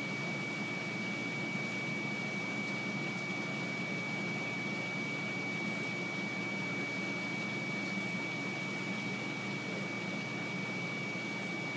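Steady machine hum and hiss with a constant high-pitched whine, unchanging throughout.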